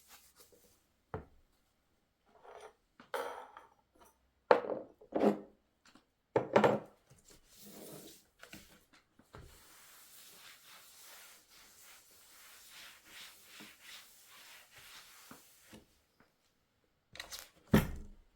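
Objects being handled: scattered knocks and scraping, then a soft steady hiss lasting about six seconds, then a few more knocks near the end.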